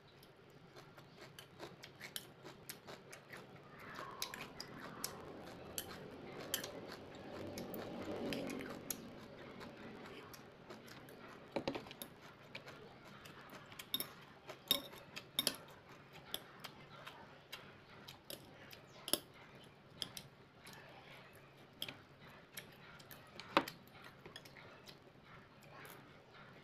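Metal chopsticks clicking and scraping against a ceramic rice bowl and plate in irregular sharp taps, with the loudest click near the end. A softer stretch of chewing and eating noise runs between about four and nine seconds in.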